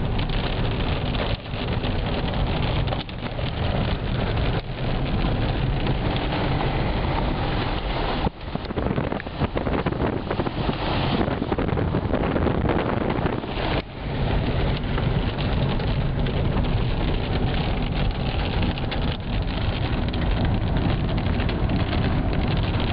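Hail drumming on a car's roof and windshield, heard from inside the car: a loud, dense clatter with wind.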